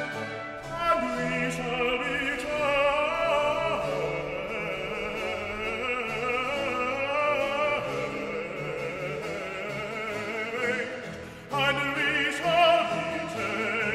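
Background music in a classical, operatic style, with a wavering sung melody line; it drops away briefly about eleven and a half seconds in, then picks up again.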